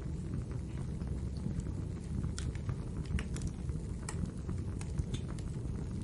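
Wood fire burning in a fireplace: a steady low rumble of the flames with irregular sharp crackles and pops from the burning logs, a run of louder pops from about two to five seconds in.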